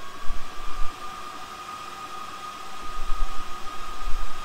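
AlgoLaser DIY kit diode laser engraver running while engraving a wooden coaster: a steady fan hiss with a steady high whine, and low rumbles now and then.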